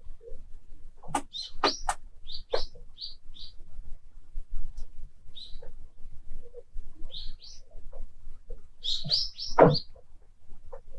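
Lake ice on a frozen lake creaking and singing: irregular sharp pings and cracks, some falling away in a downward zing, the loudest near the end. Short high chirps come in quick runs between them.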